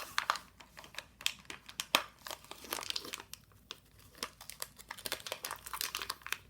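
Packaging being crinkled and torn by hands struggling to open it, a run of irregular crackles and sharp clicks that thins out about halfway through.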